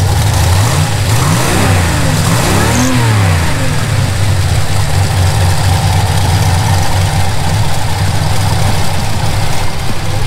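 Supercharged car engine idling, blipped twice on the throttle by hand, the revs rising and falling back about a second and a half and about three seconds in. It then settles into a steady idle with a faint whine over it.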